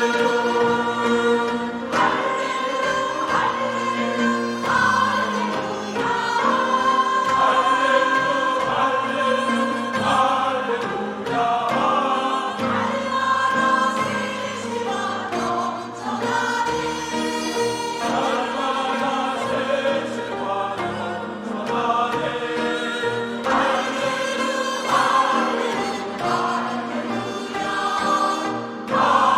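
A church choir singing an anthem in Korean traditional (gugak) style, many voices together in sustained, changing harmony.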